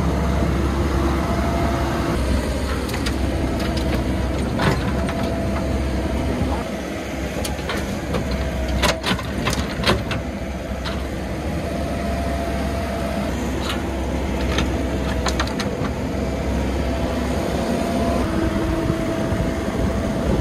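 Komatsu PC78US excavator's diesel engine running steadily under a steady whine, while its bucket works over a steel dump-truck bed. Sharp clanks and knocks come every so often, most around the middle, from the bucket and soil striking the truck body.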